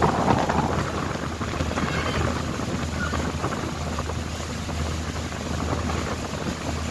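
Boat engine droning low and steady under wind rushing over the microphone.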